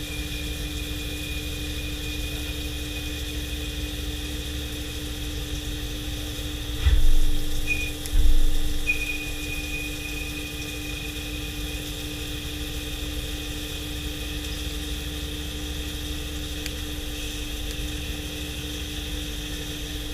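CNC machine running with a steady hum and a high, steady whine. The whine breaks off briefly about eight seconds in, and two dull thumps come around seven and eight seconds.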